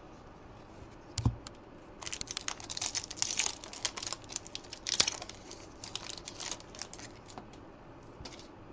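Rugby league trading cards being flicked through by hand: a quick, irregular run of light clicks and snaps of card edges, with a soft thump about a second in.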